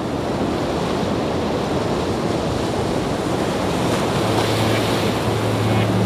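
Heavy monsoon rain falling, a steady even hiss. About four seconds in, a low steady hum joins it.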